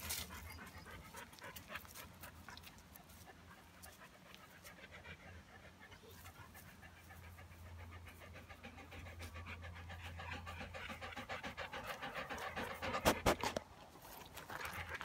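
A dog panting close by, quick and rhythmic, growing louder through the second half, with a few sharper thumps about two seconds before the end.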